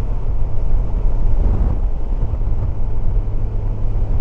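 Motorcycle cruising steadily at highway speed, about 65 mph: a constant low engine drone under heavy wind rush on the rider's microphone.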